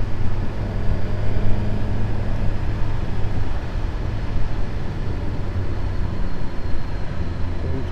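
Suzuki GSX-S1000GT's inline-four engine running steadily under way, a constant low hum under a rush of wind and road noise.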